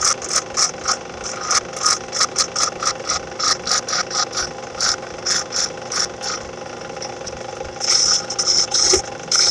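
Wood lathe motor humming steadily while a hand-held turning tool cuts a spinning heart pine handle blank in short, repeated scraping bursts, about three a second. Near the end the cuts become longer and louder.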